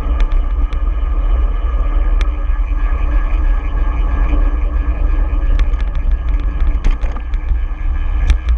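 Wind buffeting the microphone of a handlebar-mounted camera on a moving bicycle, a loud, steady, low rumble, with scattered sharp clicks over it.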